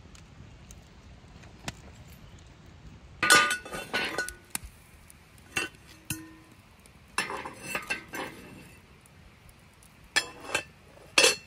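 Small cast iron pot and its lid clinking and knocking together as they are handled, a string of sharp metal knocks starting about three seconds in, one ringing briefly.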